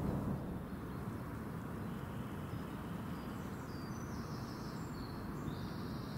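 Quiet lakeside woodland ambience: a steady low rumbling haze, with a few faint, short, high chirps in the second half.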